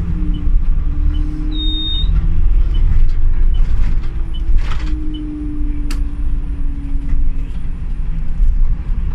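City bus under way: steady low engine and road rumble with a drivetrain whine that wavers in pitch. A short high beep sounds a little under two seconds in.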